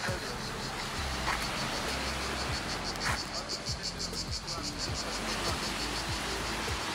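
Insects chirring in the trees with a fast, even pulse of about ten pulses a second.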